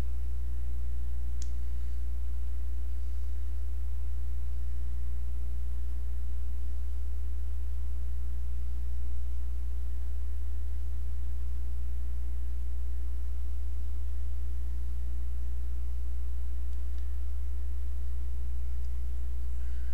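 Steady low hum with a fainter, higher steady tone above it and no other events.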